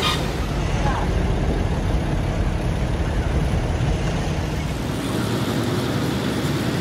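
Heavy machinery engine running steadily, a continuous low engine noise; its low end eases slightly about five seconds in.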